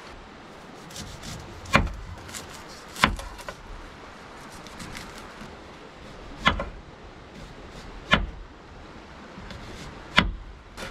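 Kitchen knife knocking on a wooden cutting board as an onion is cut: five separate sharp knocks, irregularly spaced one to three seconds apart, with a few lighter taps between.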